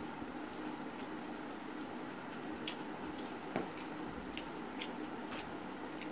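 Fingers mashing and mixing rice with fish curry on a steel plate: wet squishing with scattered light clicks, and one sharper knock about three and a half seconds in.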